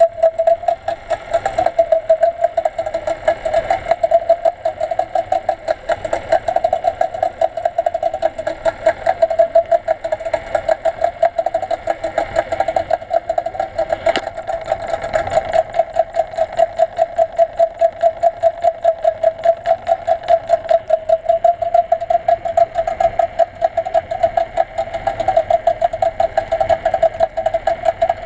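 A small engine running steadily, heard through the water as an even, rapidly pulsing hum.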